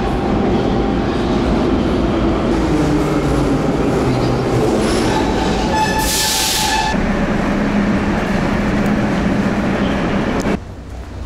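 Metro train at a station platform, a loud steady running noise with a shifting motor whine and wheel noise. A loud hiss breaks in about six seconds in and lasts about a second. The noise cuts off suddenly near the end.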